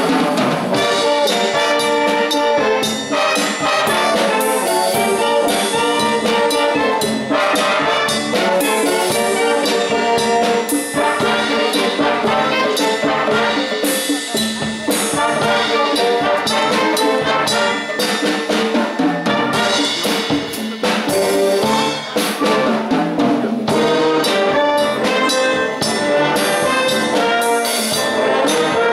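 Wind band playing a Cuban-style dance tune, with brass such as trumpets and trombones carrying the melody alongside clarinets over a drum kit.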